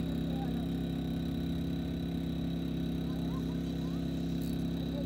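A steady low engine drone, running evenly without change in pitch or level.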